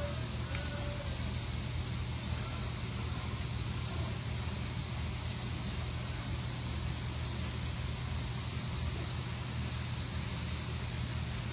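Steady operating-room background noise: a low, even hum under a constant hiss, unchanging throughout.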